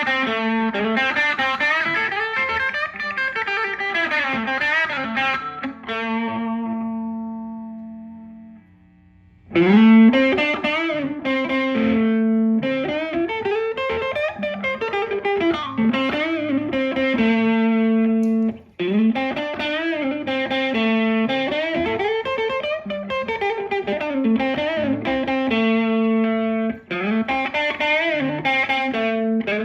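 Electric guitar, a Fender Stratocaster, played through an amp with a little overdrive: a repeating riff. About six seconds in, a chord rings out and fades almost to nothing, then the riff starts again.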